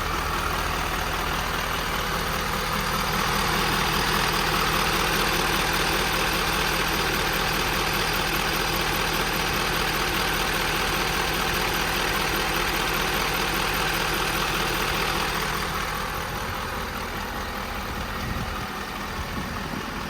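Ford F550's 6.7 L Power Stroke V8 diesel running as the truck drives, with a steady engine hum and road noise heard from inside the cab; the noise eases off over the last few seconds.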